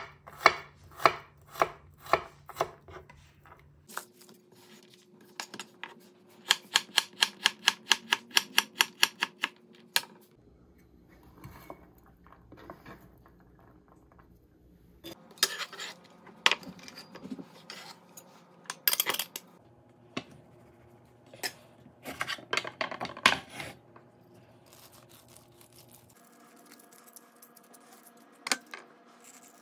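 Chef's knife chopping red onion on a wooden cutting board, first in evenly spaced strokes and then in a quick run of chops. After that comes rubbing, scraping and clatter as the diced onion is gathered with a metal bench scraper.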